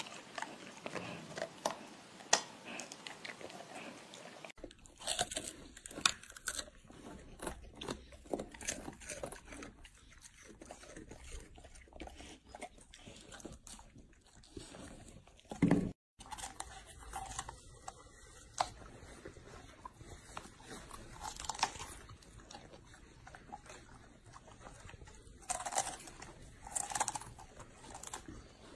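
Golden retrievers chewing and crunching raw vegetables, with many short crisp crunches as they bite into a sweet potato, sugarcane and romanesco broccoli. A single thump about sixteen seconds in.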